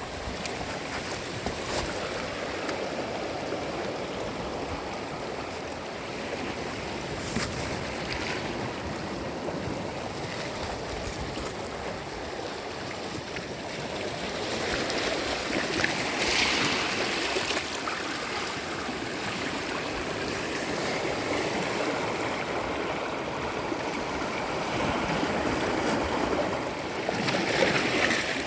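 Sea waves washing onto a beach: a continuous rush of surf that swells and ebbs, with louder breaking waves about halfway through and again near the end.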